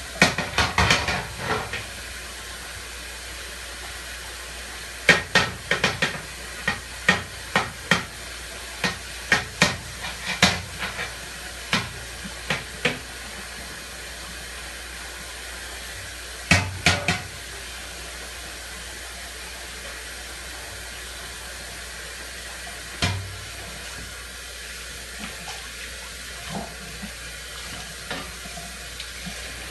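Dishes being washed by hand in a sink. Plates and cutlery clink and knock in irregular bursts over a steady hiss of running tap water. The clinking is busiest in the first half, then thins to a few knocks and light clinks.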